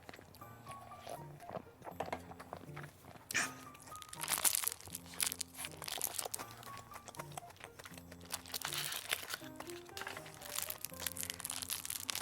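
Background music with a simple melody, over crunching and crinkling from eating a whole-shrimp burger. The crunching is loudest from about three seconds in and again near nine seconds.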